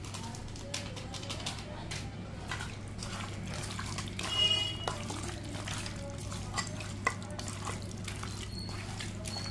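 A hand squelching and kneading chicken pieces in a wet yogurt-and-spice marinade in a steel bowl: irregular wet squishes and small clicks of meat against the metal, over a steady low hum.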